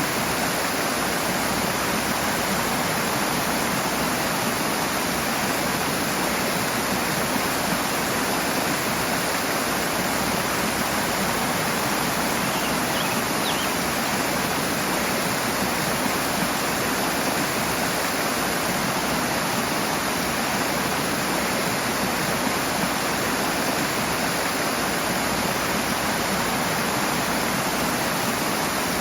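Rushing water from a stream or small waterfall, a steady, dense hiss and splash that does not change.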